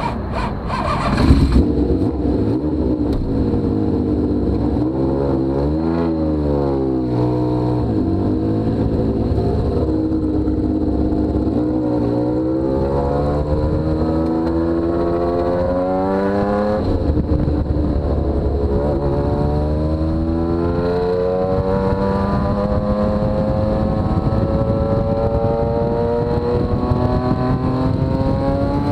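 Honda CBX1000's inline-six engine accelerating through the gears, its pitch climbing and dropping back at each upshift, then rising slowly and steadily at motorway speed.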